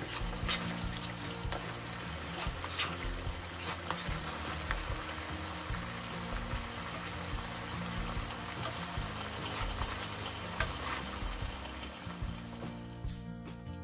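Thick demi-glace and red wine sauce with onions and mushrooms bubbling and sizzling as it reduces in a frying pan, with a spoon stirring through it and scattered small clicks.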